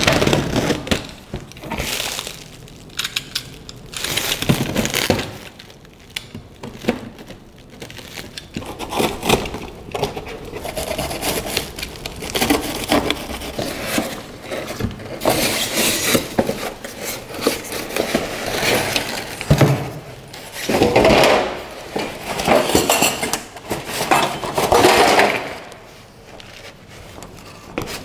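Plastic stretch wrap and a cardboard box being cut and torn open by hand: irregular crinkling, tearing and rustling in bursts, with the odd knock of cardboard.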